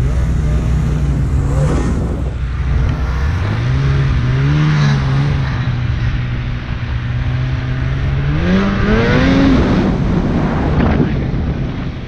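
Polaris 850 Pro RMK snowmobile's two-stroke twin engine running under way, its revs climbing about four seconds in and again near the nine-second mark, over a steady rush of track and wind noise.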